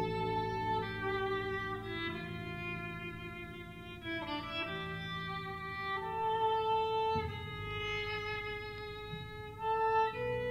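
A violin plays a slow melody of long bowed notes that change pitch every second or two, with lower string notes held beneath.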